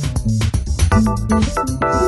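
Background music with a steady drum beat and a bass line; keyboard chords come in about a second in.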